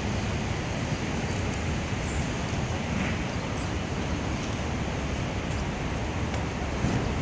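Steady outdoor city ambience: an even, low rumble of distant traffic mixed with wind noise, with no distinct events.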